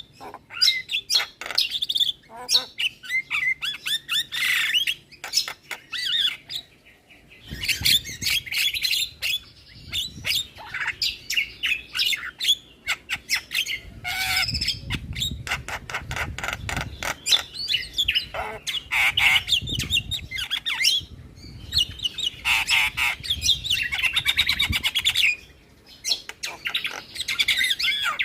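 Javan mynas (jalak kebo) chattering and calling continuously: harsh squawks mixed with fast clicking rattles and chirps, with short lulls about seven seconds in and again near the end.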